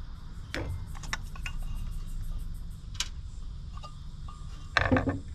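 Scattered light clicks and metallic taps of a screwdriver and a metal intake pipe being handled and worked loose in an engine bay, with a louder clatter near the end.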